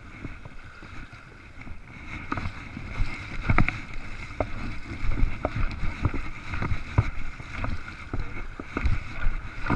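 Splashing and sloshing in shallow river water from a hooked steelhead thrashing at the surface as it is led in, mixed with wading steps through the water. The splashes come irregularly and grow louder from about three seconds in.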